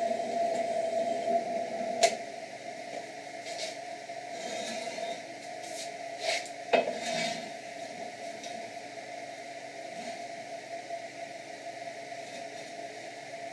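Benchtop drill press motor running steadily, with a sharp metal clank about two seconds in and a few loud clunks around six to seven seconds in as the square metal tube being drilled is shifted on the table.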